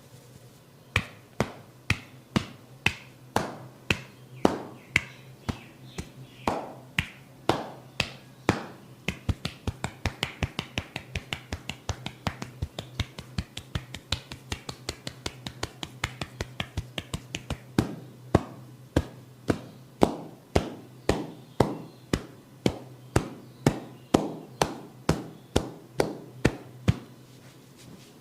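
Percussive head-massage strikes tapping in a steady rhythm, sharp and crisp, about two a second. About nine seconds in they quicken to a rapid patter of about four a second, then slow back to about two a second near seventeen seconds.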